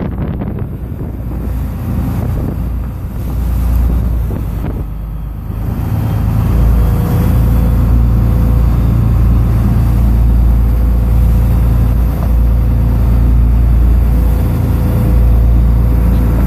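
Small boat's engine running under way, a steady low drone that grows louder about six seconds in as it speeds up, with wind buffeting the microphone.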